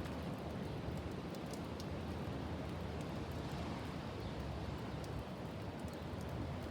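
Strong wind blowing steadily, a constant rushing with faint scattered ticks.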